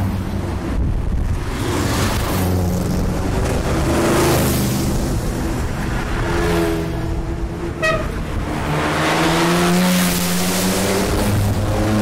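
Classic sports and rally cars driving past close by, one after another, each engine swelling as it nears and fading away. A brief high toot sounds about eight seconds in.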